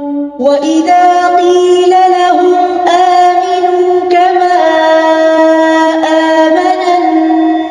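One voice reciting the Quran in the melodic, drawn-out chanting style, holding long ornamented notes. The voice comes back in after a brief breath right at the start.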